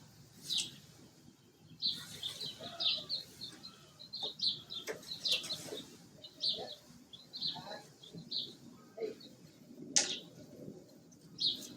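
Small birds chirping repeatedly in the background, with a few sharp clicks and knocks from hand work, the loudest about ten seconds in.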